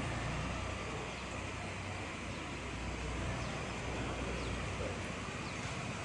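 Steady outdoor background rumble, typical of distant road traffic, with a few faint brief high chirps.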